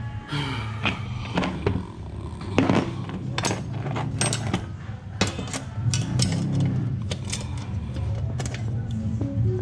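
Irregular metallic clicks and knocks of an adjustable wrench working a bolt and nut on the aluminium bracket of a bike rack, over a low steady hum.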